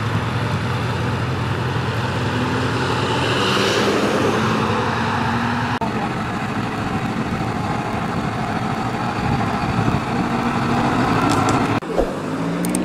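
Motor vehicle engines running steadily, with a low engine hum and a vehicle passing about four seconds in. The sound changes abruptly at edits near six and twelve seconds.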